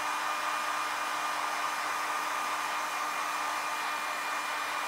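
Handheld hairdryer running steadily, blowing hot air close over leather to dry freshly dabbed leather paint: a constant rush of air with a steady whine.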